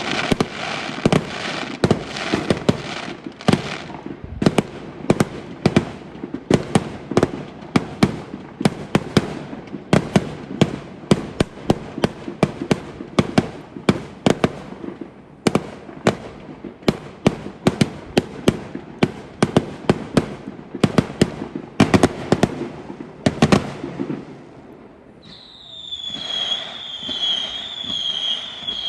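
Fireworks going off in a rapid barrage of sharp bangs, several a second, for most of the stretch. After a short lull near the end, a high wavering whistle-like tone rises and falls in a steady rhythm.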